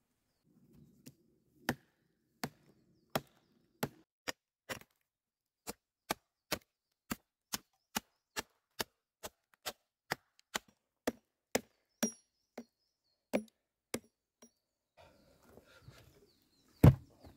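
Hatchet chopping a point onto a wooden stake: a long run of sharp chops, about two a second. Near the end, a heavy thud as the sharpened stake is driven into the soil.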